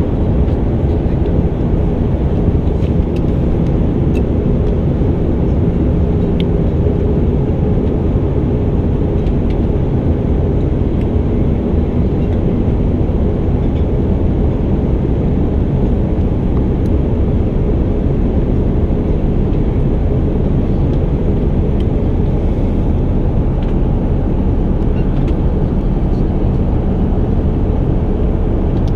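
Steady cabin noise of an Airbus A319 airliner in descent: a deep, even rush of airflow and jet engine noise, with faint steady hum tones beneath it.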